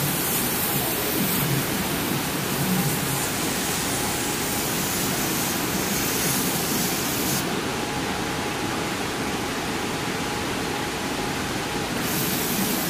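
Steady rushing noise of a large two-head CO2 laser cutting machine at work on fabric, mainly its air flow and fume extraction, with occasional short low hums. The highest part of the hiss drops away for a few seconds past the middle.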